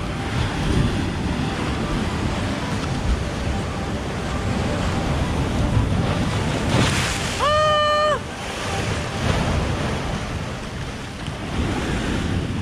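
Ocean waves surging and breaking over rough limestone rocks at the shoreline, water rushing into the gaps between them, with wind buffeting the microphone. About halfway through, a single high note is held for just under a second.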